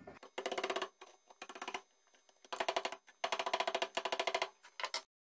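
Bursts of rapid clicking from a ratcheting hand tool turning the cast meat grinder's clamp screw, five runs of clicks with short pauses between.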